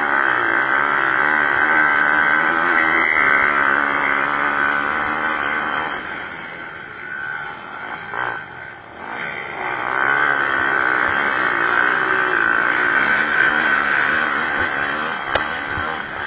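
Pit bike engines revving up and down as the bikes race, their pitch rising and falling, louder in two spells with a dip in the middle.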